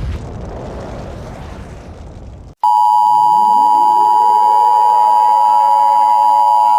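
A rumbling noise slowly fades for about two and a half seconds and cuts off. Then a loud, steady two-tone Emergency Alert System attention signal (853 and 960 Hz together) starts abruptly. Beneath it, lower tones sweep upward and settle into steady pitches.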